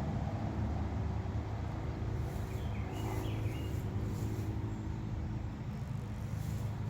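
A songbird chirping briefly, a few quick notes a little over two seconds in, over a steady low rumble.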